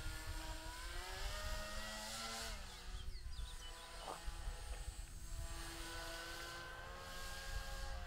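Propeller motor of a radio-controlled paraglider whining in flight. Its pitch rises, drops sharply about two and a half seconds in, and climbs again near the end as the throttle changes. Wind rumbles on the microphone underneath.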